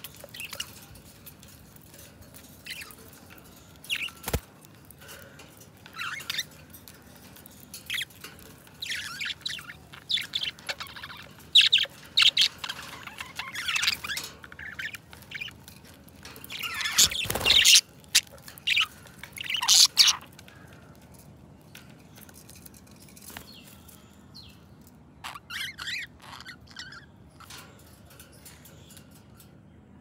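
A flock of budgerigars chirping and warbling, busiest in the middle with a loud burst of calls, then only a few scattered chirps toward the end. A single sharp click about four seconds in.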